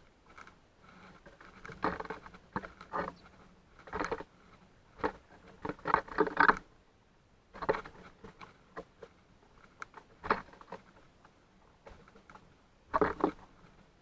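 Birds feeding at a seed feeder close to the microphone: irregular bursts of pecking, tapping and rustling in the seed, loudest in clusters every second or two.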